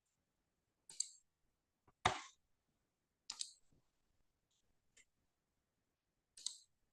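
Computer mouse clicking in a small room: five short, separate clicks a second or so apart, the second one heavier than the rest.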